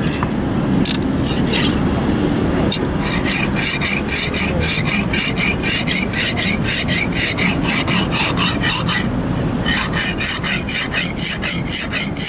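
Chinese cleaver blade being stroked back and forth on a coarse wet sharpening stone, a rasping scrape. A few single strokes come first, then a fast even run of about three or four strokes a second, with a brief pause about nine seconds in before the strokes resume.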